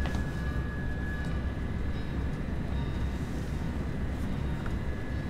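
Steady low rumble of a moving railway passenger car, heard from inside the carriage.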